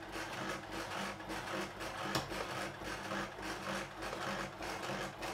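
Mini Jaguar compact sewing machine running, stitching through fabric in a steady repeating rhythm, with one sharp click about two seconds in.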